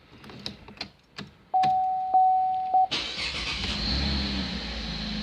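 Keys clicking as a key goes into the ignition of a Holden Commodore VF, then a steady electronic beep for over a second. About three seconds in the engine starts and settles into a steady idle.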